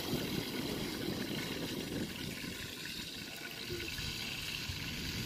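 Steady wash of sea surf on the beach, an even rushing noise without distinct events.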